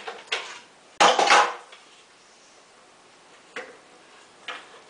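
Dishes clattering as kitchenware is moved on a cupboard shelf: one loud clatter about a second in, then a couple of light knocks.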